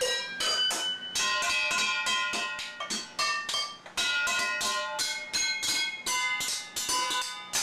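Steel pots and pans drummed on with sticks by a small child: quick, irregular metallic clanks, several a second, each one ringing at its own pitch.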